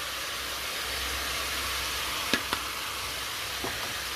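Goat meat sizzling steadily as it is sautéed with spices in a pan, with two quick knocks a little past halfway and a fainter one later.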